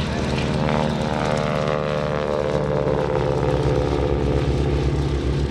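Radial engines and propellers of two Stearman biplanes flying past low, a steady drone whose pitch falls as the planes go by, about a second in.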